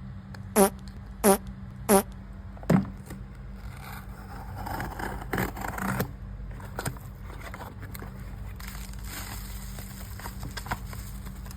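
Four sharp taps about two-thirds of a second apart, then makeup packaging rustling and scraping as it is handled and opened, with scattered small clicks.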